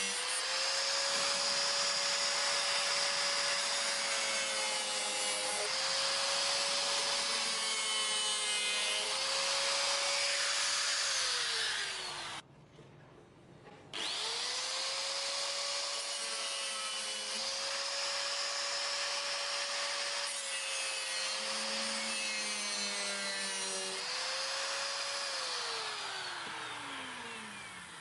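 Angle grinder cutting the sheet-steel drum to trim a slot. The motor whine sags under load with a harsh grinding hiss. It is switched off about halfway through, spins back up, and winds down near the end.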